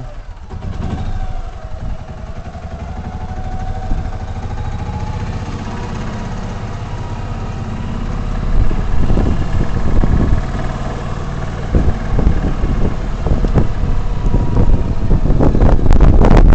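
Tracker OX400 side-by-side's engine running as it drives, growing louder about halfway through, with knocks and rattles in the second half.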